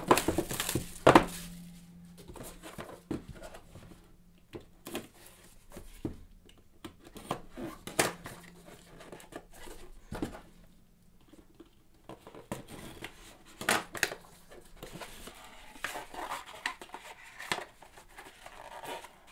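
Sealed Leaf Flash baseball card box being unwrapped and opened by hand: plastic wrap tearing and crinkling, with irregular taps and knocks of cardboard. The loudest knocks come in the first second or so.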